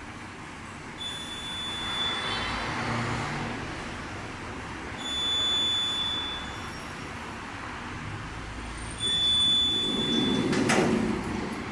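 Traction elevator with its doors held open: a high electronic beep sounds three times, each about a second and a half long, a few seconds apart. Near the end the car and landing doors slide closed with a low rumble and a click.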